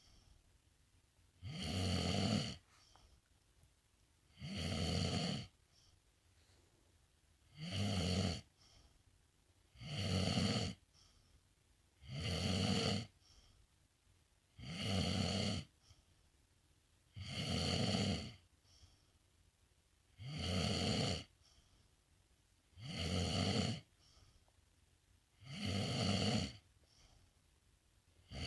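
A sleeping pet snoring in a slow, regular rhythm, one snore about every two and a half seconds.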